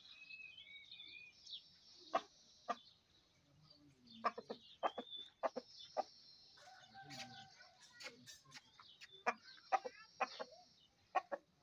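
Aseel rooster giving short, separate clucks, singly and in little groups of two or three, with gaps between.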